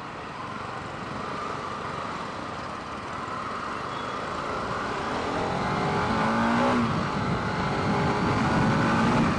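Motorcycle engine, a Bajaj Pulsar RS 200's single-cylinder, pulling away and accelerating through traffic, with a haze of road and traffic noise. A little past halfway the engine note rises and grows louder as it picks up speed.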